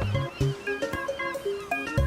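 Cartoon background music: a tune of short notes stepping between pitches over a bass line, with a few light percussive hits.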